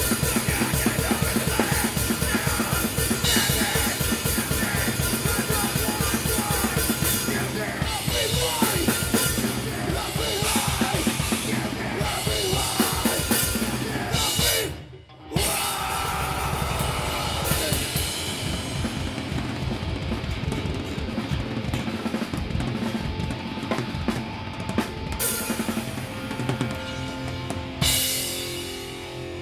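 A live punk band plays a hardcore cover, heard from beside the drum kit. Steady kick, snare and Zildjian cymbal strokes sit up front over the band. About halfway through everything stops dead for under a second before the band comes back in, and the sound tails off near the end.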